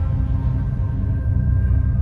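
Dark, ominous background music: a steady low drone with held tones above it.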